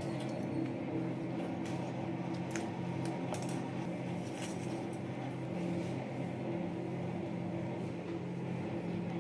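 Steady hum of a small motor, with a few light clicks and scrapes of a steel serving spoon on pieces of crab masala on a plate.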